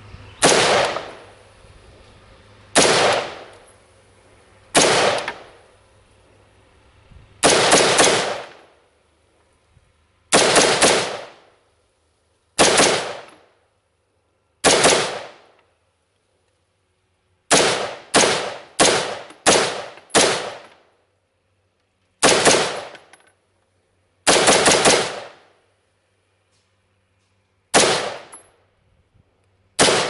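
Smith & Wesson M&P15 AR-15 rifle in 5.56 mm firing single shots, about sixteen in all, spaced one to three seconds apart, with a quick run of five shots a little past halfway. Each shot is followed by a short fading echo.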